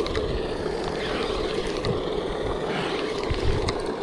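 Steady droning hum of paddlewheel pond aerators churning the water, with a few soft knocks from handling the rod and reel close to the microphone.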